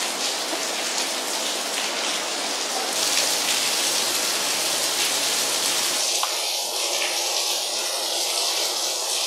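Steady background hiss with no distinct clicks or knocks; its tone shifts slightly about three and six seconds in.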